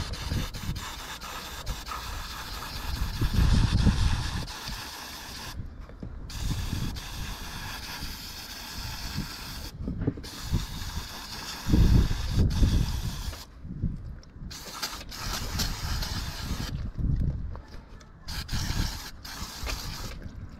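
Aerosol can of degreaser hissing as it is sprayed over a clogged lawn mower air filter, in long bursts with a few short breaks between them. A couple of low rumbles from handling are heard along with it.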